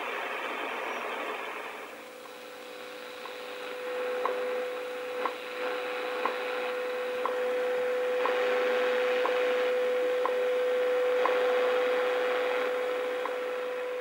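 Shortwave reception of the WWV time station on 10 MHz through a 12AU7 regenerative receiver's small speaker: hiss and static, with a steady tone that comes in about two seconds in and a short tick every second, the station's seconds pulses.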